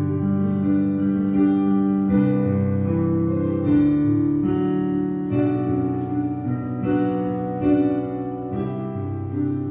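Slow instrumental music with sustained chords, fresh notes struck about once a second.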